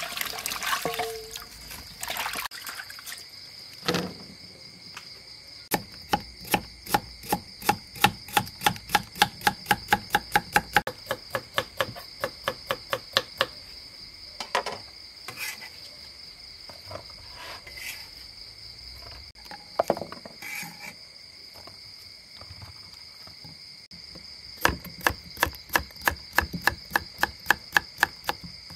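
Hands swishing green onions in a bowl of water, then a large knife chopping vegetables on a wooden chopping block in quick runs of sharp strokes, about three a second, with scattered single knocks between. Insects chirr steadily behind.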